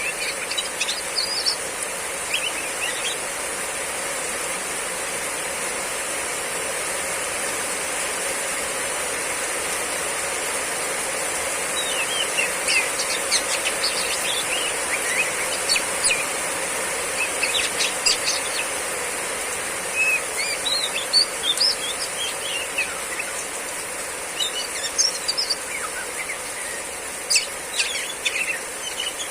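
Female oriental magpie-robin giving short, sharp chirping calls in scattered bursts, busier in the second half, over the steady hiss of heavy rain.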